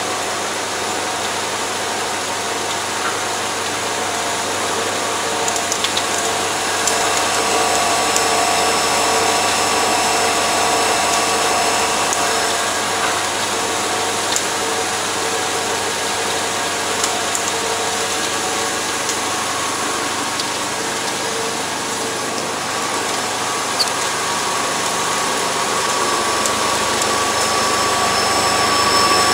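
A gas-pipeline construction rig running loud and steady, an even mechanical noise with several constant tones and a few light ticks.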